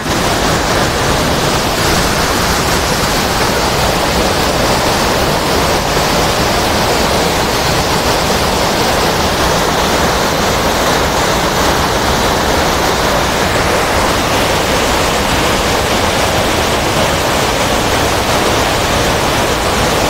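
Large waterfall in heavy flow heard close up: a very loud, steady rush of falling water that does not let up.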